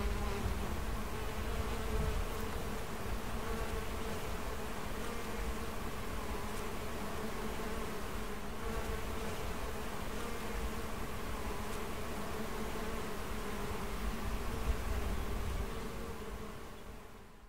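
A colony of honeybees buzzing on the hive frames: a steady, even hum of many bees that fades out near the end.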